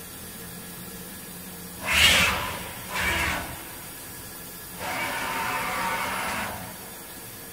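Deckel Maho DMU 80 T five-axis machining centre working its swivel rotary table: two short hissing bursts about a second apart, the first the louder, then a steadier whirring for about a second and a half as the table moves, over a low machine hum.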